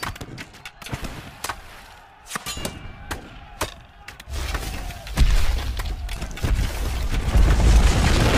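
Film sound effects of cracking rock: scattered sharp cracks and knocks, then from about four seconds in a deep rumble that grows louder as a huge boulder comes crashing down.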